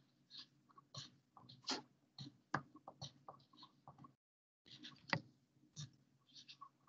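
Coloured pencil writing letters on paper: faint, irregular short taps and scratches of the lead on the sheet, stopping briefly a little past halfway.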